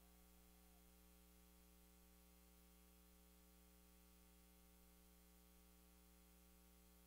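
Near silence: only a faint, steady hum and hiss from the recording's noise floor.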